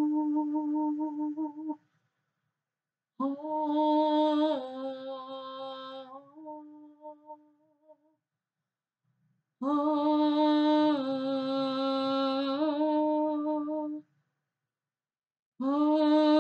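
A woman's wordless improvised vocal toning: long held notes that step between a few pitches, sung in phrases of a few seconds with silent pauses for breath between them.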